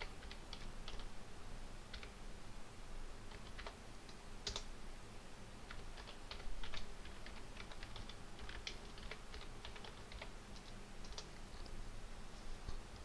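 Computer keyboard keys clicking in irregular runs as commands are typed, with one louder keystroke about four and a half seconds in.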